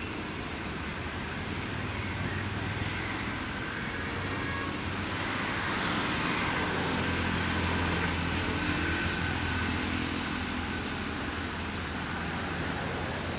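Steady low hum of a running engine over outdoor background noise, growing a little louder through the middle.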